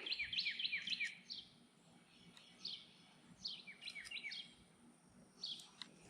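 A songbird singing: quick runs of short, high chirps that each slide downward, in a few separate bursts.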